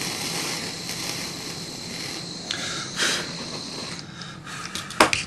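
Small hand-held gas torch hissing steadily with a thin whistle while it heats a twisted wire splice to flow the solder. It goes off about four seconds in, and a sharp click follows near the end.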